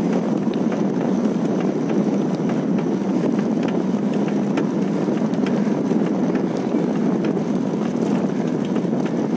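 Steady rushing of wind on the microphone and tyre noise on the road while riding a bicycle, with faint rapid ticks scattered through it.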